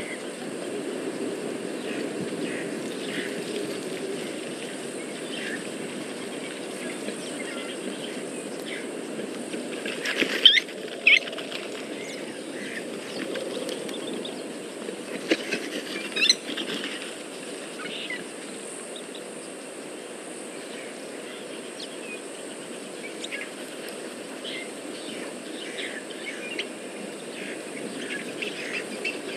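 Bush ambience from a wildlife camera's microphone: scattered short bird chirps over a steady low background noise, with a few louder sharp sounds about ten to eleven seconds in and again around sixteen seconds.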